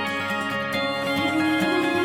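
Background music: an instrumental song intro with steadily picked acoustic guitar.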